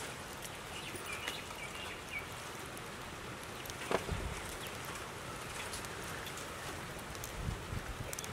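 Water splashing and dripping in a steel bowl as green chillies are swished and lifted out by hand, with scattered small drips and a sharper tap about four seconds in.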